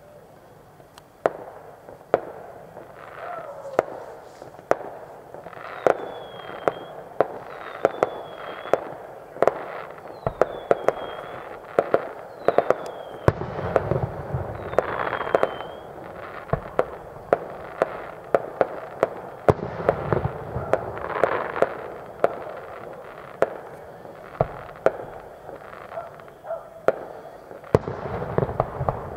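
Distant fireworks display: a steady run of sharp bangs and crackles, with heavier low booms now and then.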